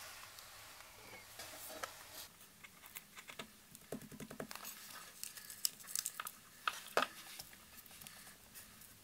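Paper and fabric scraps rustling and tapping as they are handled and pressed flat on a wooden tabletop, with a glue tape runner pulled along them. A quick run of ticks comes about four seconds in, followed by a few sharp clicks.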